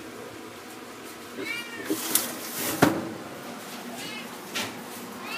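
Cat meowing: one arched meow about a second and a half in and another at the very end. Two sharp knocks sound in the middle, the second the loudest.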